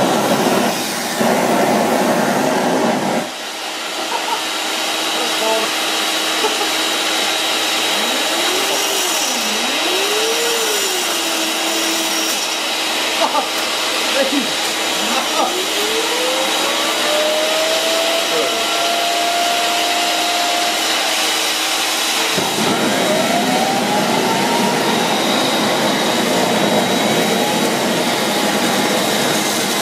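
Homemade LPG-fired turbine jet engine built around a vacuum cleaner motor, running with a steady rush of air and burner flame. About three seconds in the motor's dense drone cuts out, leaving the hiss and the spool's whistle gliding up and down in pitch. The drone comes back on about two-thirds of the way through, a sign the engine is not quite able to sustain itself.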